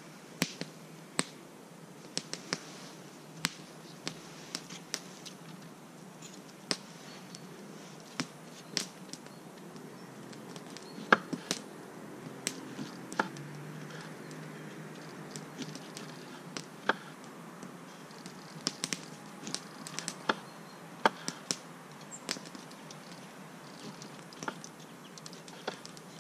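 Irregular sharp clicks and light knocks, one every second or so, with a few closer together around the middle, over a steady low background hiss.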